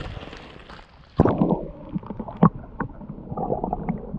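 Water splashing as a hand lowers a small fish into shallow creek water. From about a second in comes muffled underwater sloshing with scattered knocks of gravel as the hand stirs the creek bed, heard through a submerged camera.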